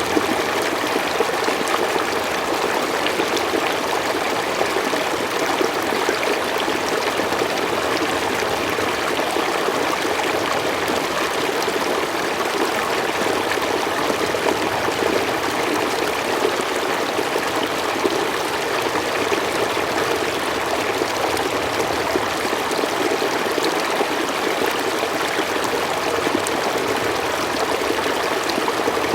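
A forest stream running over stones, a steady babbling and trickling of flowing water.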